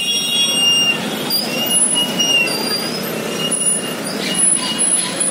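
Motorcycle and scooter engines running at low speed, with thin, high-pitched squeals that come and go throughout.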